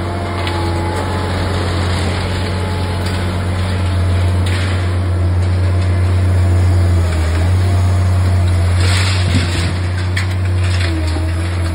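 Liebherr R 960 Demolition excavator's diesel engine and hydraulics running steadily under work with a deep hum. Brief crunching and clanking of concrete and steel debris from the demolition tool come through about four and a half seconds in and again around nine seconds in.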